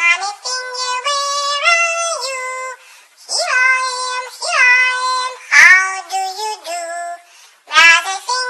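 A nursery-rhyme song sung in a very high, synthetic-sounding voice with music, in short melodic phrases broken by brief pauses about three seconds in and near the end.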